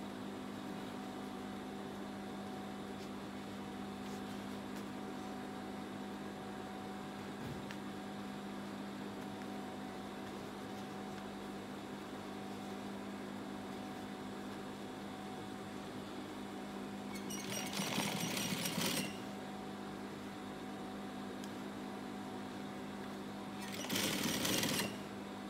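Gemsy industrial lockstitch sewing machine stitching through denim in two short runs, about a second and a half each, over a steady hum. The first run comes roughly two-thirds of the way in and the second near the end.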